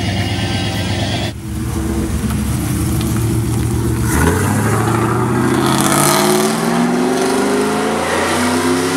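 Pickup truck engine running, then accelerating: from a little under halfway through, its pitch climbs steadily for several seconds as the truck speeds up.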